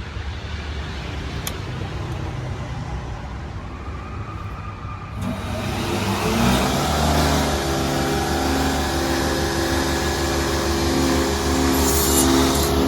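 Electric motor of a picture-frame cutting machine switched on about five seconds in, its pitch rising as it comes up to speed, then running steadily. A low hum before it starts.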